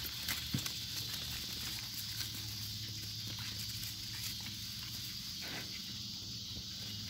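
Light rustling and scattered clicks of puppies scrambling over dry leaves and a wooden board against a wire fence, with a couple of sharper knocks about half a second in. A steady high hiss and a low hum run underneath.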